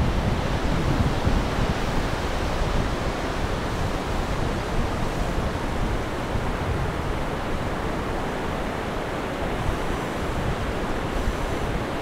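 Sea surf breaking along a wide sandy beach, a steady wash of waves, with wind rumbling on the microphone.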